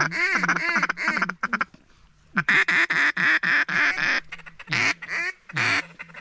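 Duck call blown to imitate quacking ducks: a run of quacks over the first second and a half, a fast series of quacks in the middle, then a few single quacks near the end.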